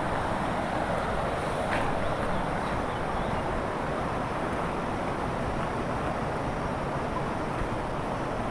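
Steady rushing noise of a motorbike ride, with wind on the microphone; no clear engine note stands out.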